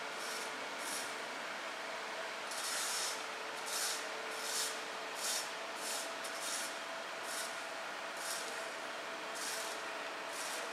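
A steady rushing hiss with short bursts of sharper hiss every half-second to second. Under it runs the faint steady whine of a model boat's small electric motor, which shifts to a higher pitch about halfway through.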